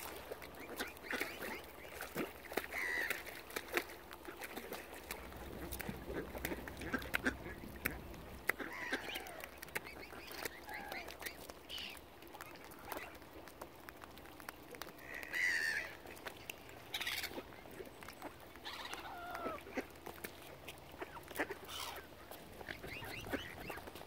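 Mallard ducks quacking at intervals, mixed with other bird calls, some sliding down in pitch. Scattered small clicks sound throughout.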